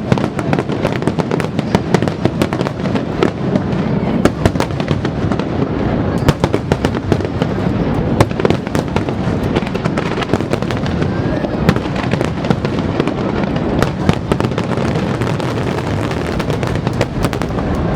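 Fireworks display: aerial shells bursting in a dense, continuous barrage of booms and crackling.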